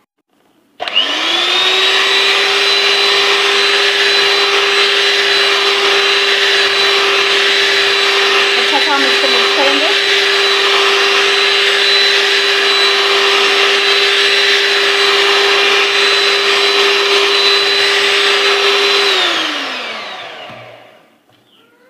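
Electric hand mixer beating eggs and powdered sugar into a foam: the motor starts about a second in, runs at a steady high speed, then falls in pitch and winds down near the end as it is switched off.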